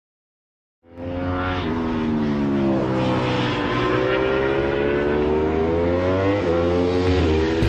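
Racing motorcycle engine accelerating hard through the gears: its pitch climbs, drops sharply at each upshift, then climbs again, several times over.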